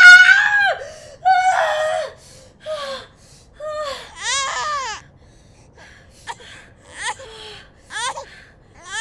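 A woman's long high-pitched scream in labour ends in the first second, followed by a newborn baby crying in short wavering wails, repeated about once a second.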